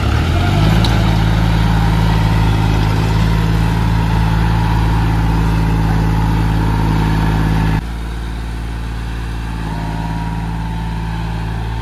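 John Deere 5105 tractor's three-cylinder diesel engine revving up in the first second and then running steadily at high revs under load as it strains to pull its loaded trolley out of soft sand. The sound drops suddenly to a lower level about eight seconds in.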